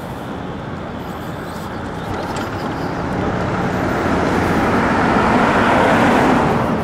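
A car passing on the street: its tyre and engine noise swells over a few seconds, is loudest near the end, then drops away.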